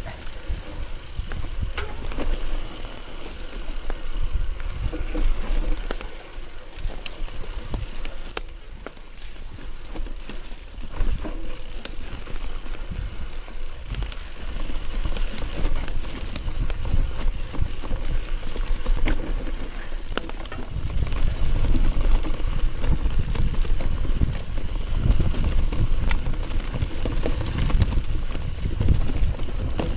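Mountain bike descending a dirt forest trail: tyres rolling over dirt and roots with the bike rattling and scattered sharp knocks. A low rumble grows heavier about two-thirds of the way through.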